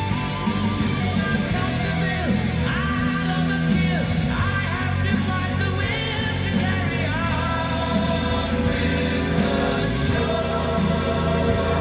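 Music with singing, playing steadily and loud.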